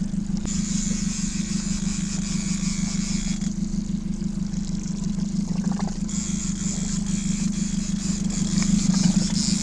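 Boat's outboard motor running steadily at low speed, an even low hum, with a hiss over it that comes and goes.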